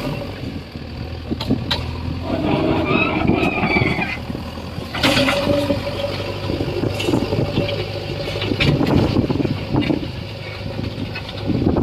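JCB 3DX backhoe loader's diesel engine running steadily as the machine works, with several sharp metallic knocks and a steady whine from about five to eight seconds in.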